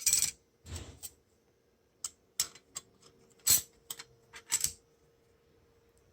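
Short metallic clinks and taps as steel and friction plates from a Mercedes 722.6 automatic transmission's clutch pack are handled and set down, about ten sharp clicks in the first four and a half seconds.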